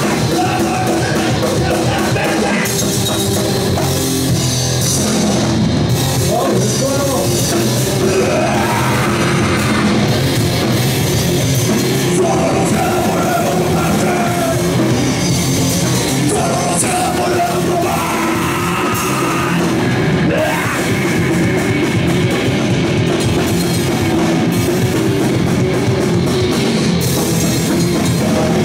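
A rock band playing live and loud: electric guitar, bass guitar and drum kit, with a singer's voice over the band.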